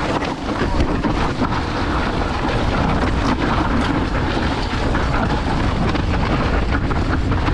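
Full-suspension mountain bike (Santa Cruz Nomad V5) descending a dirt trail, heard from the rider's action camera: a steady rumble of tyres over the ground and wind on the microphone, broken by many small knocks and rattles from the bike over bumps.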